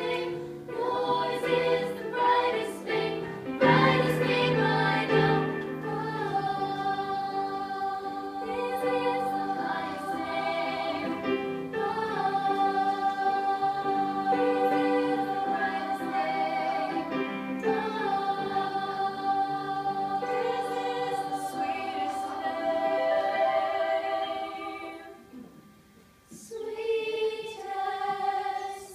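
Girls' choir singing in harmony with electronic keyboard accompaniment, holding long sustained notes. Near the end the singing dies away for a moment, then a short phrase follows.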